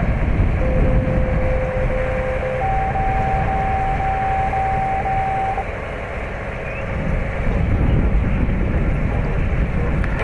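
Military truck engine running close by, a steady low rumble mixed with wind on the microphone. A steady electronic tone starts about half a second in, steps up in pitch about two seconds later and stops a little past the middle.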